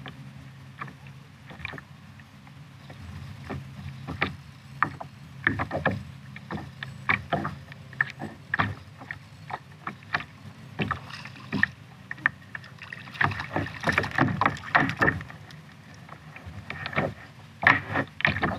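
Water slapping and splashing against a plastic kayak's hull in irregular short knocks while a spotted bay bass is fought to the boat and swung aboard. The splashing is busiest in the last few seconds.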